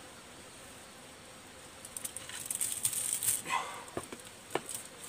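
Rustling and light clattering as a live porcupine is dragged out of a stick trap. The noise starts about two seconds in, after a faint steady hiss, and has a couple of sharper knocks near four seconds.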